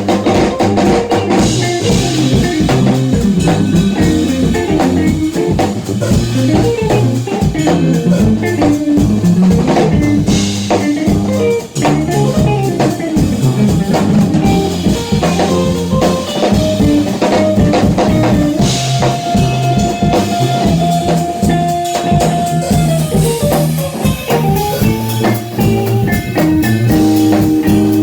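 Instrumental funk-jazz trio playing: guitar lines over a low brass bass line and a drum kit, with one long held note about two-thirds of the way through.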